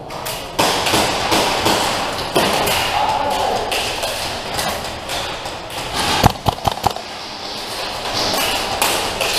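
Airsoft gunfire and BB hits echoing in a large indoor hall: scattered clicks and knocks over a busy background with some voices, then a quick cluster of four or five sharp, loud cracks about six seconds in.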